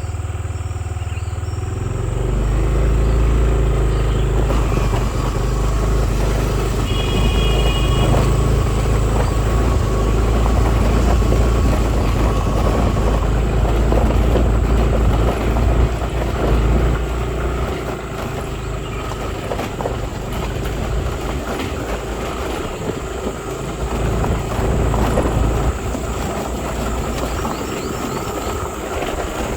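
Motorcycle running while being ridden, with a heavy low rumble that continues throughout.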